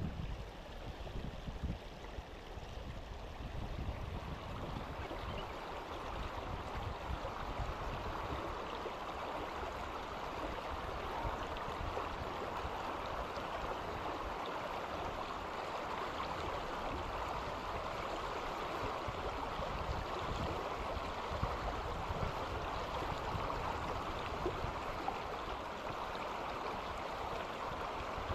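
River water rushing steadily over rocks in shallow rapids, a little louder from about four seconds in. A low rumble of wind on the microphone is strongest in the first couple of seconds.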